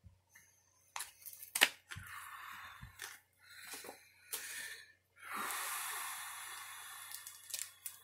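Mail packaging being handled and opened by hand: a couple of sharp clicks about a second in, then short stretches of crinkling and rustling, and a longer tearing rustle of about two seconds past the middle.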